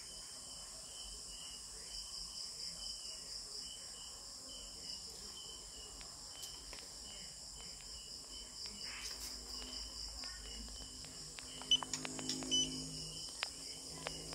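Crickets chirping steadily in the background, a high pulsing trill. A few sharp clicks and taps near the end.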